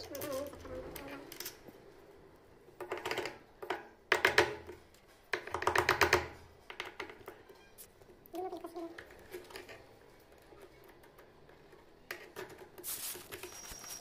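Screws being driven by a hand screwdriver through a door lock's metal mounting plate into the wooden door: several bursts of rapid clicking, the longest and loudest about six seconds in.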